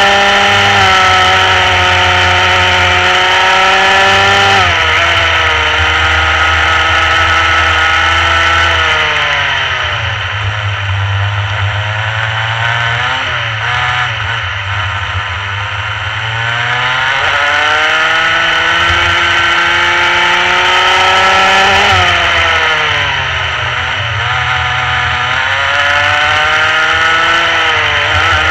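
Rotax Mini Max single-cylinder two-stroke kart engine running at speed, its pitch climbing and falling with the throttle through corners and straights. It is high early on, drops sharply about four and a half seconds in, stays low through the middle, then climbs again. It drops sharply once more about 22 seconds in and climbs near the end.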